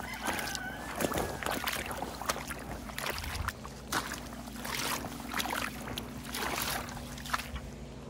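Boots splashing and squelching through shallow puddles and wet mud, one footstep after another at a steady walking pace.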